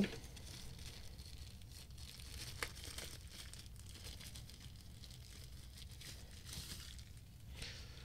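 A grey packaging pouch crinkling and rustling faintly as it is handled and a cable is pulled out of it, with a few slightly louder crinkles in the second half.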